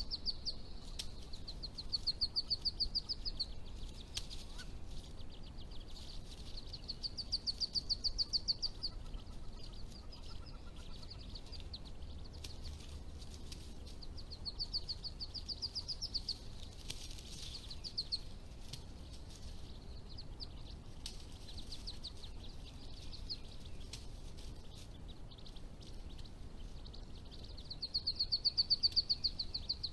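A small songbird sings a fast, even trill, each phrase about a second and a half long. It repeats every several seconds, loudest four times, over a faint steady forest background.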